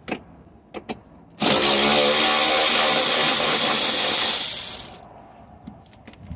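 Cordless power ratchet running for about three seconds, spinning out a bolt from the battery hold-down bracket. A few light clicks come just before it.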